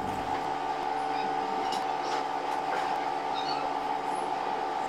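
A steady hum of several held tones that starts abruptly and does not change, with a few faint ticks over it.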